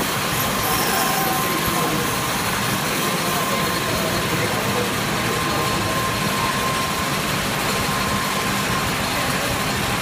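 Manual lathe running and cutting titanium with coolant pouring over the work: a steady machine noise with a thin, steady whine.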